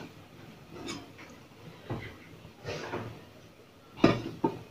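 Kitchen utensils and bowls knocking and clinking while ingredients for a dough are handled: a few light clicks, then two sharper knocks about four seconds in.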